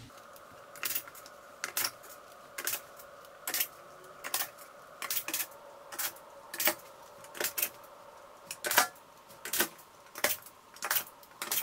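Short screws being driven by hand to fix metal drawer runners to a particleboard cabinet side: sharp metallic clicks about once a second, some in quick pairs, over a faint steady hum.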